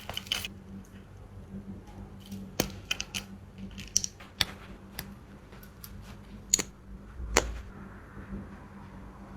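Makeup products and packaging being handled: scattered light clicks and taps, with the sharpest two about six and a half and seven and a half seconds in, the second with a soft thud.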